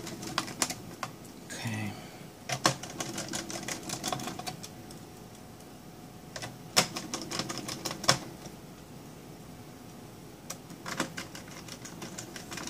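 Small precision screwdriver driving the keyboard screws into a Dell Inspiron 5720 laptop's chassis: several bursts of light clicks and ticks, with quiet pauses between them.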